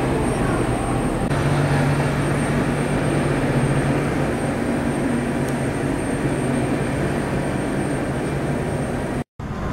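Turbofan engines of a taxiing Embraer E-Jet airliner: a steady jet rush over a low hum, which firms up about a second in. The sound cuts out for a moment near the end.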